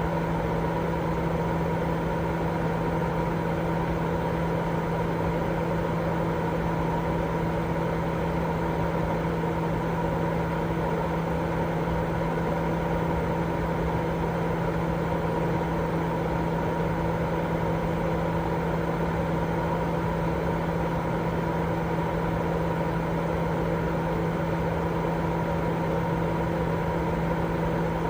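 Continuous white-noise sleep sound: an even, unchanging rush with a steady low hum running through it.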